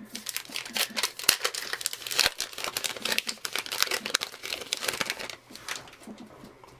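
Foil-lined wrapper of a Topps Gypsy Queen trading-card pack being torn open and crinkled by hand: a dense crackle that dies down about five and a half seconds in.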